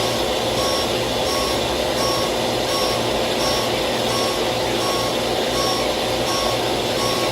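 A truck's backup alarm beeping at an even pace, roughly once a second, over a steady engine-like running noise.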